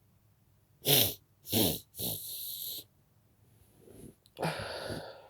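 A person sneezing twice in quick succession about a second in, each a short loud burst falling in pitch, followed by a long breathy exhale. Near the end comes another loud breathy burst with a falling voiced sound in it.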